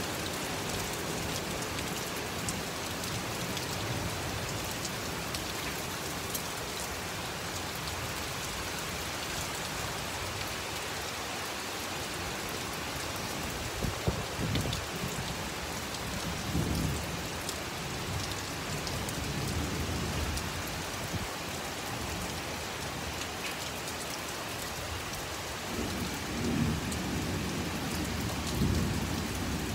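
Heavy rain pouring down steadily, with low rumbles of thunder about halfway through and again near the end.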